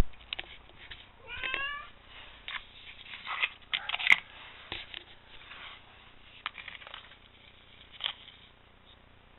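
Clicks and rattles of a removed car boot-lid lock latch being handled and turned over, with a sharp snap of its plastic and metal mechanism about four seconds in and a few lighter clicks later. A cat meows once, rising in pitch, about a second and a half in.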